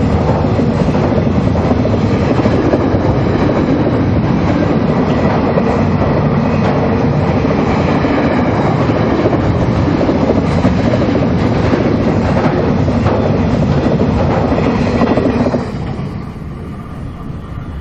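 Freight train wagons rolling past on the track, a loud steady rumble of steel wheels on rail that drops off abruptly near the end as the last wagon goes by.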